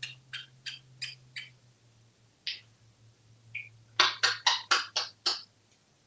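African grey parrot making a run of short smacking kiss sounds: five at about three a second, two single ones, then a quick run of six near the end.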